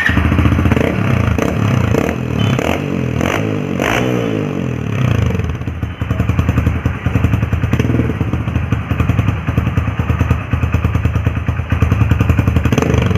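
Hero Splendor BS6 motorcycle's single-cylinder engine running through an older-model silencer. The pitch rises and falls in the first few seconds as it is revved, then it settles into a fast pulsing exhaust beat.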